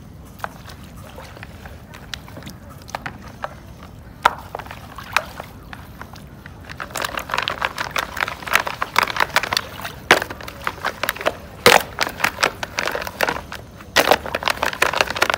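Hands washing raw goat meat in a plastic basin of seawater: water sloshing and splashing with quick wet squelches and clicks. Sparse at first, then much busier and louder from about seven seconds in as the pieces are worked and lifted.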